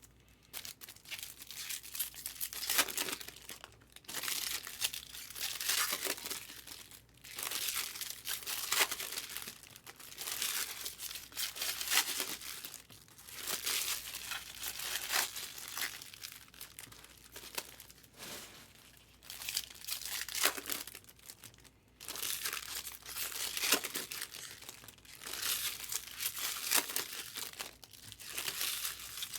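Foil trading-card pack wrappers being torn open and crinkled, in repeated bursts.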